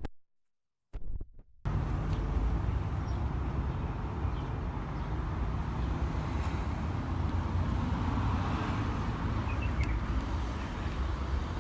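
Outdoor street noise picked up by a handheld phone: a steady low rumble of distant traffic with wind on the microphone, starting abruptly about two seconds in after a brief low bump.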